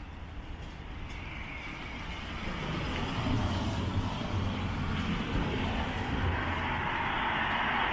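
A road vehicle approaching, its engine and tyre noise growing steadily louder.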